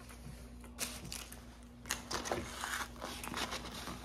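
Eating at the table: chewing and small crunchy mouth sounds, with paper wrappers crinkling and a cardboard chicken fries box being handled, busier in the second half.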